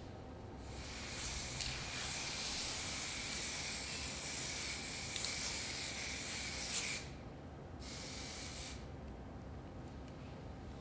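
Aerosol spray-paint can hissing as black letters are sprayed onto paper: one long spray of about six seconds, a short break, then a brief second spray of about a second.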